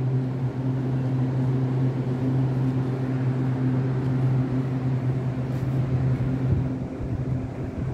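Taiwan Railways EMU800-series electric train standing at the platform with its doors closed, giving a steady low electrical hum with a second, higher tone above it. The hum fades about six and a half seconds in.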